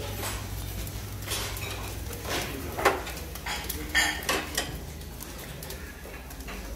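Sharp metal clinks and scrapes of a long kebab knife and skewer against the cağ kebab spit as slices of meat are cut off, a handful of separate clicks, the loudest about three seconds in, over a steady low hum.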